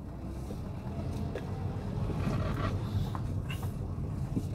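Car engine running at low speed, heard from inside the cabin as a steady low rumble while the car creeps along a rough, potholed dirt road, with scattered light knocks and rattles.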